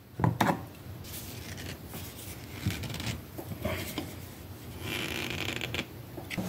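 A ratchet wrench tightening the engine's oil drain plug: a few light metal clicks, then a quick run of rapid ratchet clicking near the end.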